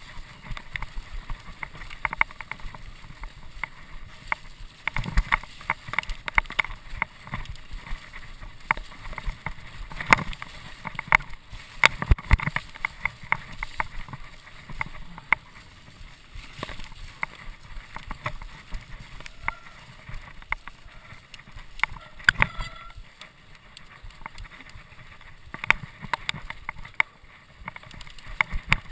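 Mountain bike jolting over a rough forest trail: an irregular run of knocks and rattles, with a brief high squeal about three-quarters of the way through.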